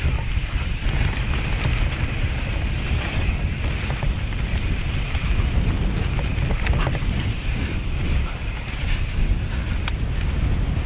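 Wind rumbling on a bike-mounted action camera's microphone during a mountain-bike descent, with tyres rolling over dirt and dry leaf litter. A few sharp clicks and ticks from the bike and trail come through.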